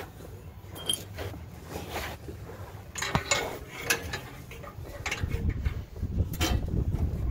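Scattered metallic clinks and knocks of hand tools and bolts being handled, a few sharp strikes about a second apart, with a low rumbling handling noise joining in the last couple of seconds.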